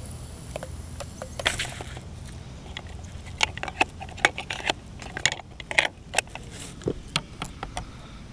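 Hands handling a DJI Phantom 1 quadcopter and the GoPro mounted on it: irregular clicks, taps and knocks of fingers and plastic against the camera housing, busiest in the middle, with a brief rustle near the start. A low steady rumble runs underneath.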